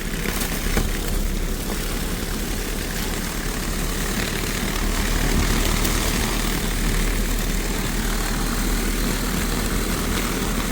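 A newly installed inverter split air conditioner running steadily on a test run, with a loud, even whir of its fan and compressor and a low hum underneath.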